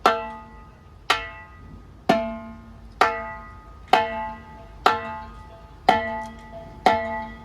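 A single tuned drum is struck once about every second at the same pitch, eight even hits in all, each ringing briefly before dying away. It is one drum played on its own so it can be balanced during a sound check.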